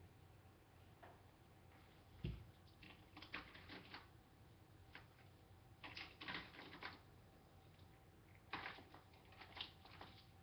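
Small plastic toys clicking and rattling on and off as they are handled, with a low thump about two seconds in.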